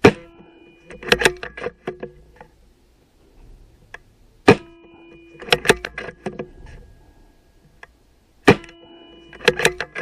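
BSA R10 SE .177 PCP air rifle fired three times, about four seconds apart: each shot a sharp crack with a short ringing tone after it, followed about a second later by a quick run of clicks as the action is cycled to load the next pellet.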